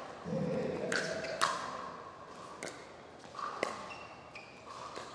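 Pickleball being played: a few sharp pops of paddles striking the plastic ball and the ball bouncing on the hard court, spaced about a second apart, with short sneaker squeaks between hits.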